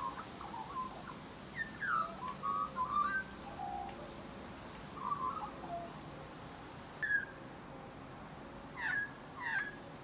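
Australian magpie singing: warbled phrases that glide up and down in pitch, then after a gap a few short, sharply falling notes near the end.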